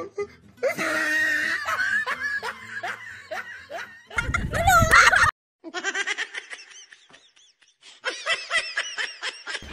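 People laughing hard in repeated runs of short bursts, with a loud outburst about halfway through.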